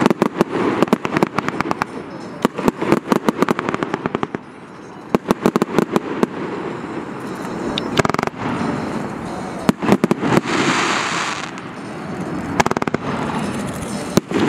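Fireworks going off: many rapid crackling pops from bursting crackle stars through the first half, thinning out after about seven seconds. A steady rushing noise then runs in two stretches near the end.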